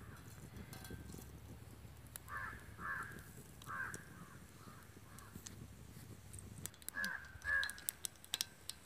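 Crows cawing: a run of harsh caws a couple of seconds in, then two more caws near the end. Crackling starts just before the end as seeds go into the hot oil in the iron pan.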